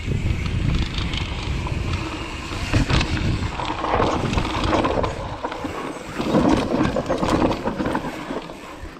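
Wind buffeting the microphone and knobby tyres rolling over a dirt trail on a YT Capra enduro mountain bike, with scattered knocks and rattles from the bike. The rush eases in the second half as the bike slows.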